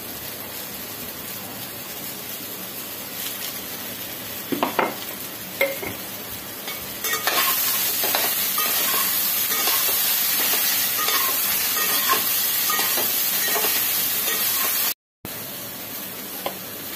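Chopped vegetables sizzling in oil in a large aluminium pot, stirred with a metal spatula that scrapes and knocks against the pot. The sizzle grows louder about halfway through as the vegetables are turned over, and it breaks off briefly near the end.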